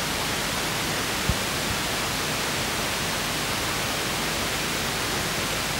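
Steady, even hiss of background noise, with one faint low knock about a second in.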